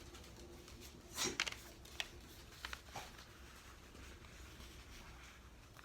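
Sheet of paper being handled and folded on a table: a brief rustle about a second in, then a few light taps and clicks, faint against the room.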